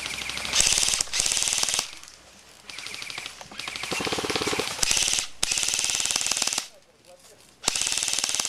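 Airsoft rifles firing on full auto: a string of rapid-fire bursts, each about half a second to a second long, some following right on one another, with a brief lull about seven seconds in.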